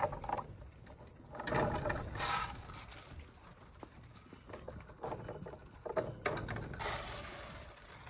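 Nigerian dwarf goats at their feed: scuffling and clattering with a few sharp knocks, and two louder noisy swells in between.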